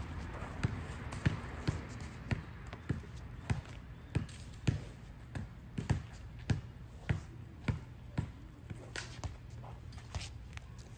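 A basketball dribbled on an asphalt court, bouncing in a steady rhythm of about three bounces every two seconds, over a low steady hum.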